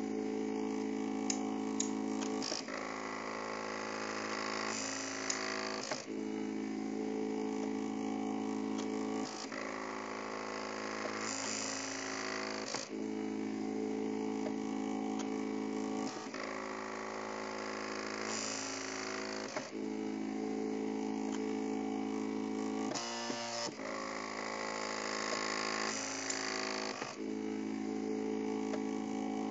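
MakerBot Cupcake CNC 3D printer's stepper motors whining steadily as the extruder lays down a raft, the tone breaking and changing briefly every three seconds or so as the head turns at the end of each raft line.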